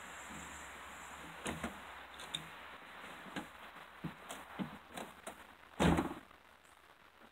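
A pickup truck's door handled: a string of knocks and clicks, then the door slamming shut about six seconds in, the loudest sound.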